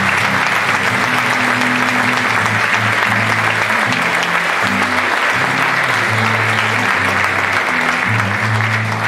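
Theatre audience applauding steadily, with an acoustic guitar playing a melody underneath.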